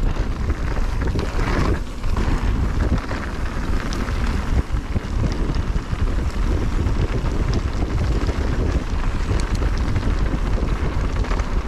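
Wind rumbling on the microphone of a mountain-bike rider's camera during a trail descent, mixed with the tyres rolling over dirt and small clicks and rattles from the bike.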